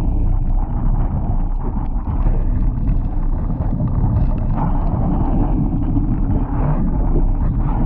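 Strong wind buffeting the microphone over water rushing and splashing along the hull of a Laser dinghy sailing fast in gusty wind, with a couple of louder surges of spray.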